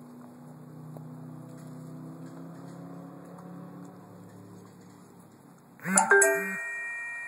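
A faint steady low hum, then about six seconds in a sudden loud metallic chime that is struck and rings on, fading over about two seconds.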